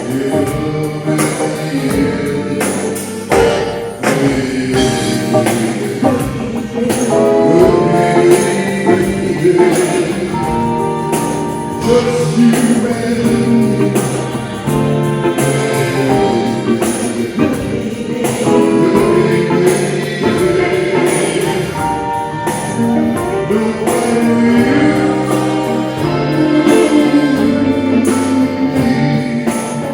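A live band playing a song with a sung vocal line over drums and backing instruments.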